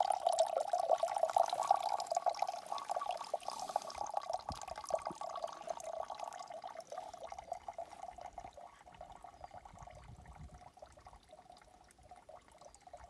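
Water trickling and dripping in quick, uneven patters that grow steadily fainter over the stretch.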